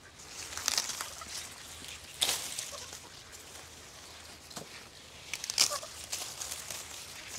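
Dry corn stalks and leaves rustling as ears are picked, with sharper crackles a few times.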